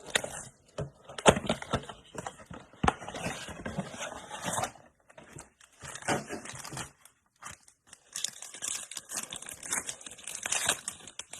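A trading-card blaster box and its foil packs being torn open, with tearing and crinkling in irregular bursts and a couple of short pauses.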